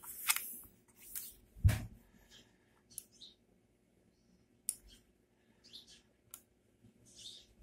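Motospeed V70 gaming mouse buttons clicking, about six single clicks at uneven intervals, with soft rustles of a hand shifting on the mouse. A duller knock with a low thud stands out under two seconds in.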